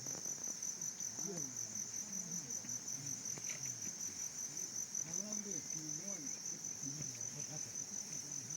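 Crickets trilling: a steady, high-pitched, finely pulsing insect chorus, with faint low voices underneath.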